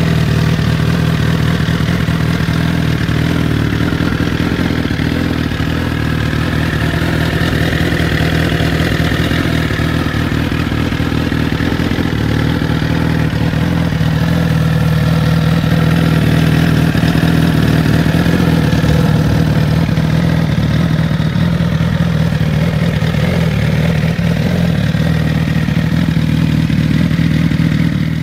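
Suzuki GSX-R1000's inline-four engine idling steadily through an aftermarket Pro Race exhaust.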